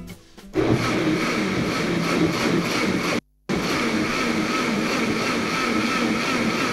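Electric countertop blender running steadily, puréeing cooked tomatoes and onions into a smooth sauce. It starts about half a second in and cuts out briefly about three seconds in before running on.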